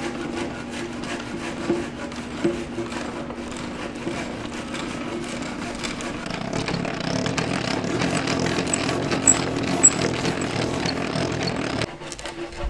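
Antique hand-cranked beam drill boring a mortise hole into a timber: the gearing and auger run steadily with scattered clicks, growing louder about halfway through, and stop abruptly near the end.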